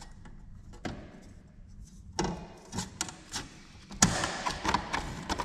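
A run of light taps and knocks: a few sharp clicks at first, then knocks about every half second from about two seconds in, the loudest about four seconds in.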